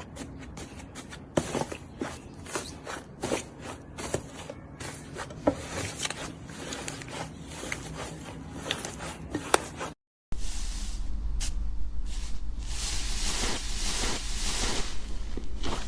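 Slime being squeezed and pressed by hand, with many small crackling pops. About ten seconds in, the sound cuts out briefly, then a denser crackling and crinkling of slime follows over a low hum.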